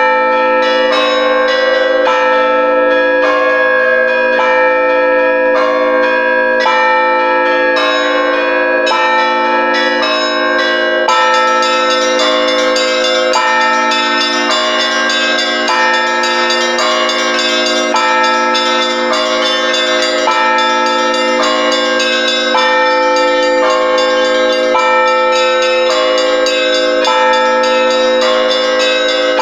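Russian Orthodox church bells rung all together in a full peal (trezvon) by a single ringer: the small bells are struck in a quick, steady pattern over the lingering hum of the larger bells. The high chiming grows denser about eleven seconds in.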